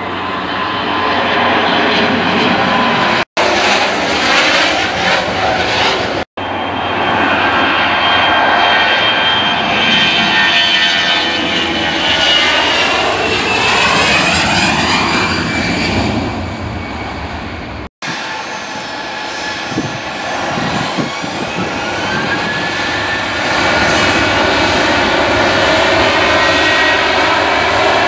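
Jet airliner engines running on the runway, heard close up across several spliced clips that cut off abruptly about three, six and eighteen seconds in. In the middle clip the engine whine falls in pitch as a Lufthansa Airbus A320-200 passes close by. In the last clip a Ryanair Boeing 737 rolls down the runway, and one tone rises in pitch.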